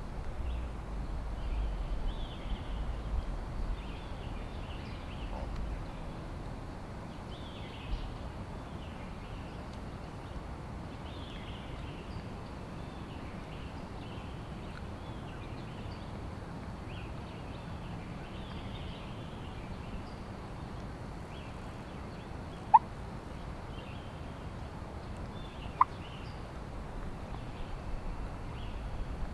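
Wild turkey calling in the woods, with two short, sharp, loud clucks about three seconds apart near the end, over faint recurring birdsong.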